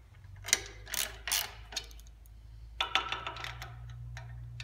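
Metal clicks and scraping as the adjustable work rest on a KMG belt grinder's horizontal conversion kit is loosened and moved by hand: a few short clicks in the first two seconds, then a longer metallic scrape about three seconds in. A steady low hum runs underneath.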